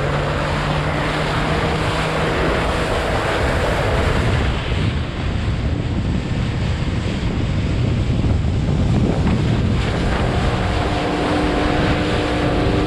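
Evinrude outboard motor driving a fishing boat at speed, with heavy wind buffeting the microphone and water rushing along the hull and wake. A steadier engine tone comes through near the end.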